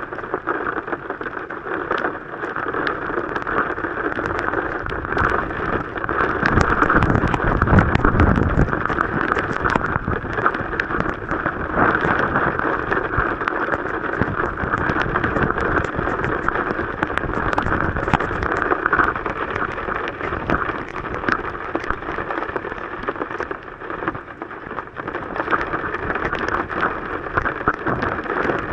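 Heavy rain drumming steadily on a vehicle's roof and windshield in a strong storm, with many small drop impacts in the hiss. A deeper rushing rumble swells for a few seconds about six seconds in.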